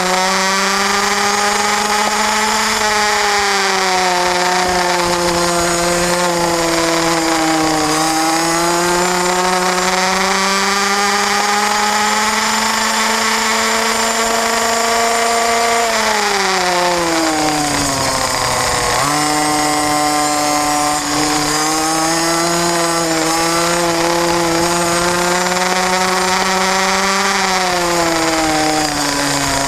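Small racing motorcycle engine heard from on board, running hard at high revs with its pitch rising and sagging as the throttle is worked. Past the middle the pitch falls steeply as the throttle is shut for a corner, then climbs back as it is opened again; it dips once more near the end.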